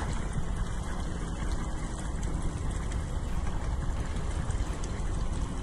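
Panga fishing boat under way: its outboard motor running steadily with water rushing and splashing along the hull.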